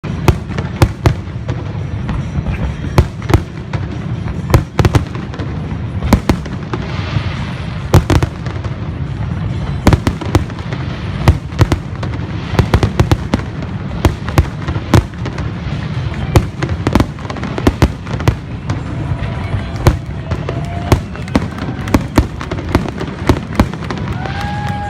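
Fireworks display: a dense, continuous series of sharp bangs and booms, a few a second, with crackling between them over a steady low rumble.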